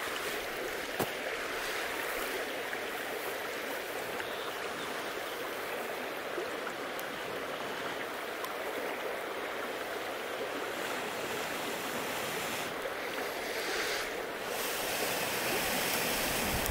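Steady rush of moving water.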